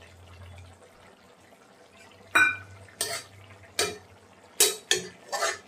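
Metal spoon stirring curry in a steel kadai, clinking sharply against the pan about six times, starting a little over two seconds in.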